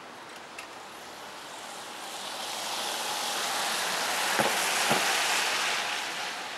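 A car driving past close by, its tyre hiss swelling to a peak about two-thirds of the way in and then fading, with two light knocks as it passes.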